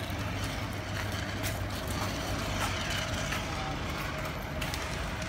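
Steady low vehicle-like rumble with a faint constant hum and a few light knocks.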